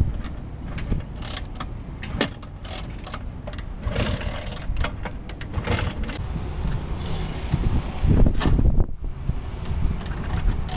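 Vintage Vespa scooter being kickstarted: a knock and clatter from the kickstart lever about every two seconds as its two-stroke single-cylinder engine is turned over. The stalled engine does not settle into a steady run.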